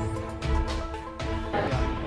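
Background music: held notes over a slow, deep beat.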